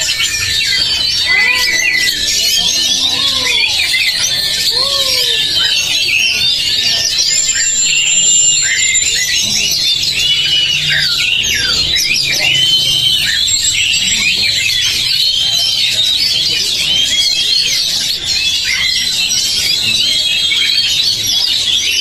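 A chorus of caged oriental magpie-robins (kacer) singing at once at a songbird contest: dense, overlapping loud whistles, trills and rapid chattering phrases. A few lower, arching calls sound in the first five seconds.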